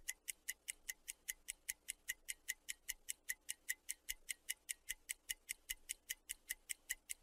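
Steady, even ticking like a clock or timer, about five sharp high ticks a second: a ticking sound effect that times the pause for the listener to repeat the phrase.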